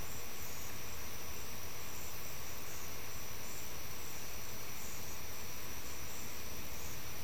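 Night insects calling: a steady high-pitched trill with short pulsed calls above it every second or so, over a constant low hiss.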